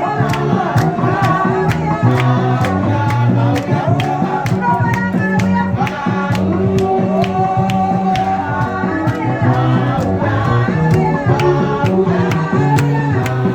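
Gospel music: voices singing over a band with bass and a steady drum beat.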